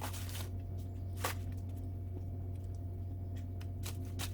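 A steady low hum with a few faint clicks and rustles of handling on top of it. The clearest click comes about a second in, and a few more follow near the end.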